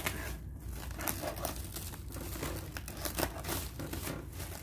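Packaging crinkling and rustling in irregular bursts as it is handled and pulled open, with a tearing sound now and then.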